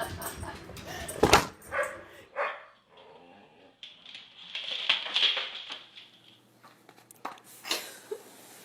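Dog barking, with the loudest, sharpest bark about a second in and a few quieter sounds after it.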